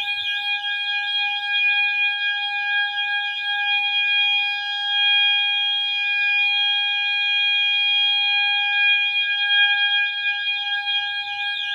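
Two fire alarm horn strobes sounding together: an FCI horn strobe on its warble tone, a rapid electronic warble of about three wavers a second, over a second horn holding a steady, continuous tone.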